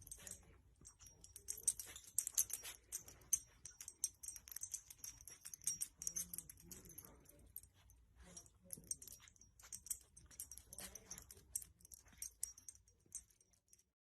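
Faint, irregular high-pitched clicking and light jingling in uneven flurries, with short pauses between them.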